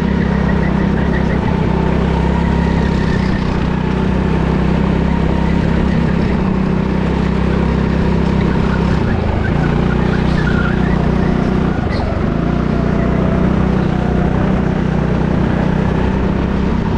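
Go-kart motor running hard at speed, heard on board from the driver's seat. It is steady and dips briefly twice, about nine and twelve seconds in.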